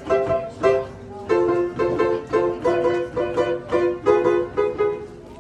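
Upright street piano being played: a steady run of repeated chords in the middle register, about three a second, each note fading quickly after it is struck.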